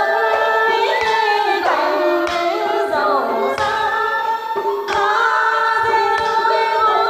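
A woman singing into a handheld microphone, heard through a loudspeaker: long held notes with sliding, bending ornaments, in the manner of Vietnamese traditional singing, with a few short sharp taps.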